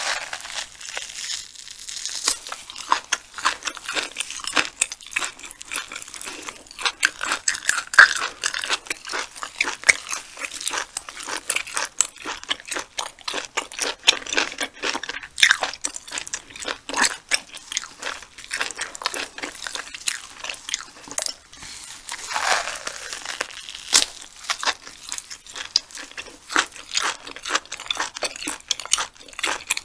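Close-miked chewing of sea hare: a dense, irregular run of wet clicks and smacks as the meat is bitten and worked between the teeth.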